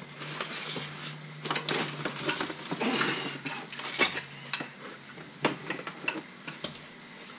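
Parts and packing being handled and lifted out of a cardboard box: irregular rustling with hard clinks and clatters of small parts, the sharpest clink about four seconds in.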